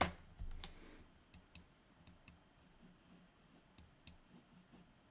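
Faint, scattered sharp clicks, several of them spread over a few seconds, against quiet room tone.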